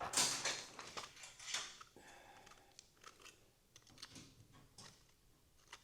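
Small file scratching the inside of the rusty fuse clips in an old fuse block, cleaning them for a good electrical contact. Light, uneven scraping for the first second and a half, then only faint scattered ticks.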